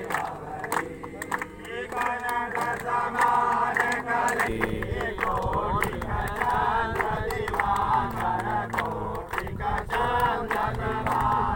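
Crowd of men chanting and shouting together, many voices overlapping.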